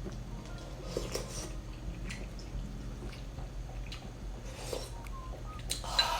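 Eating sounds from a bowl of malatang: a few short, faint slurps and utensil clicks, with a louder slurp near the end.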